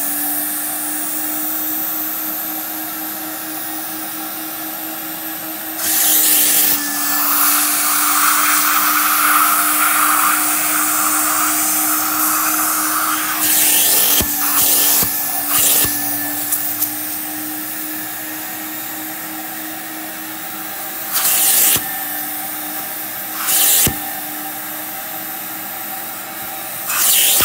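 Carpet extractor's vacuum motor running steadily through a clear upholstery tool drawn over couch fabric, with a constant hum, broken by about seven short, loud hissing bursts.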